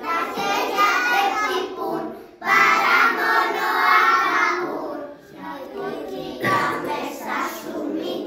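A group of young children singing a song together, in phrases broken by short pauses.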